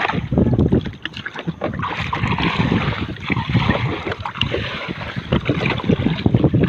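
Seawater sloshing and splashing around people wading waist-deep, with gusts of wind on the microphone.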